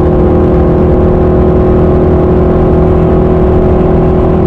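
Factory Five Type 65 Cobra Daytona coupe at about 160 mph, heard from inside the cabin. The engine drones at a constant pitch under a steady rush of wind and road noise, held at a flat-out cruise.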